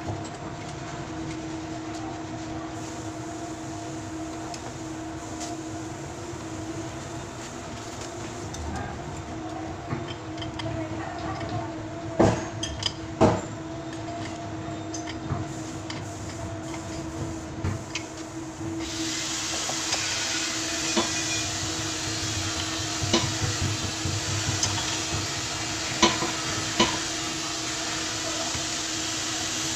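Light clicks and knocks of metal pipe fittings being handled under a stainless-steel sink, over a steady hum. About two-thirds of the way through, a steady hiss starts and keeps going.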